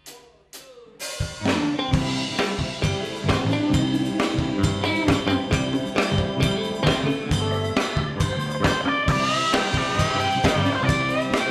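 Live rock band starting an instrumental intro. A few sharp clicks come first, then drum kit, bass and guitars come in together about a second in with a steady beat. A lead melody with bending notes joins near the end.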